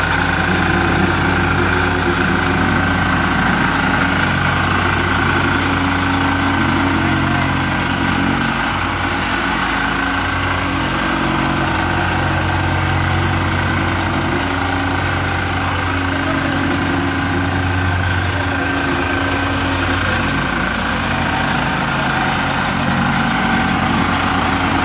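Reversible plate compactor running steadily, its engine running and the plate vibrating as it compacts loose soil.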